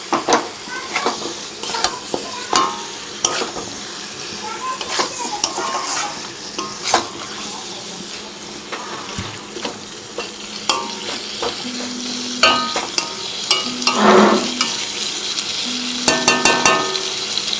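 Metal spatula stirring and scraping boiled mutton pieces through thick masala sizzling in a metal pan, with frequent clicks of the spatula against the pan. Near the end a short steady tone sounds several times in the background.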